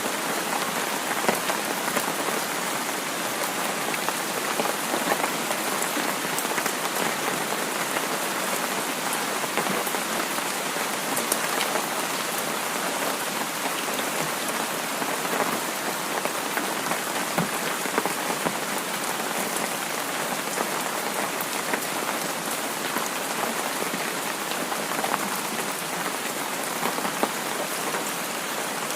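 Heavy rain falling steadily, with a constant hiss and many small scattered drop impacts.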